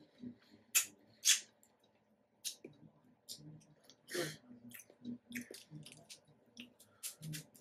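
Close-up wet chewing of juicy pomegranate seeds: irregular crunchy clicks, smacks and squelches from the mouth, with one longer, louder squelch about four seconds in.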